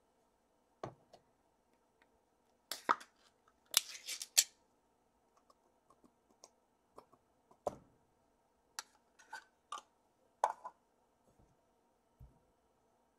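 Scattered clicks and clatters of a stainless steel food bowl and utensils being handled as food is prepared, with clusters of louder clinks about three to four and a half seconds in and again near ten and a half seconds. A faint steady hum runs underneath.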